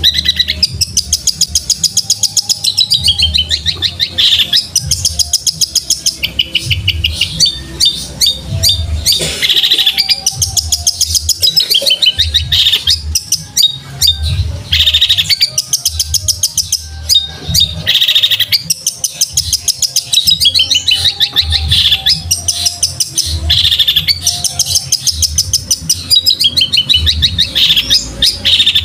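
Fast, rolling chirps and chatter of fighting house sparrows, used as a masteran for long-tailed shrikes to copy. The calls come as rattling trills a second or two long, one run after another without pause.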